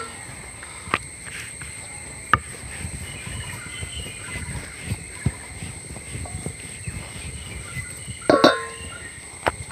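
Rumali roti dough being rolled out thin with a rolling pin on a board: soft rubbing with a few sharp knocks and a brief louder clatter near the end. A steady high chirring of insects runs underneath.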